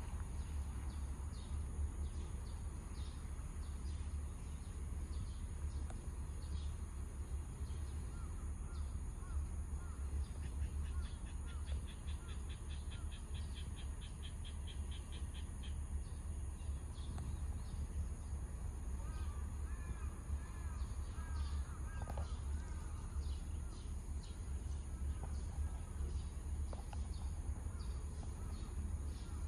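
Birds calling outdoors: scattered chirps and, midway, a rapid trill, over a steady low rumble.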